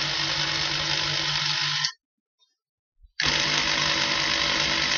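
Electric drill boring holes into wooden supports. It runs steadily, stops about two seconds in, and starts again just past the three-second mark.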